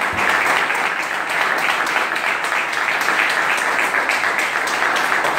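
Audience applauding, a dense, even patter of many hands clapping.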